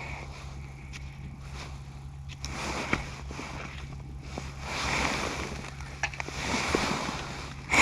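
Rushing, wind-like noise that swells three times over a steady low hum, with a short, sharp burst near the end.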